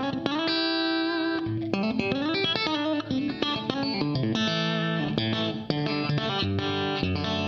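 Clean electric guitar played fingerstyle through old Marshall valve heads run loud with plenty of headroom, with a compressor and stereo reverb. It plays a melodic line with a slide up a little under 2 s in, then fuller chordal picking from about 4 s.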